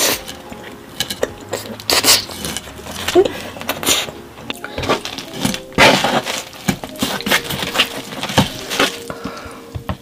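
Close-up eating sounds: chewing a mouthful of pizza, then a pizza slice being pulled away from the pie in its cardboard box. Irregular crackles and clicks throughout, with faint music underneath.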